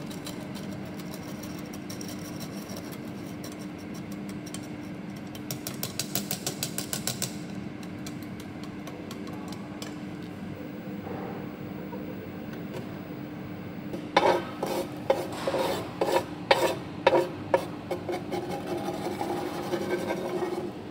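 Metal tools scraping through granular welding flux and working at the stuck slag on a fresh submerged-arc weld bead on a steel plate: a fast rattling scrape about six seconds in, then a run of louder sharp scrapes and knocks from about fourteen seconds in. A steady low hum runs underneath.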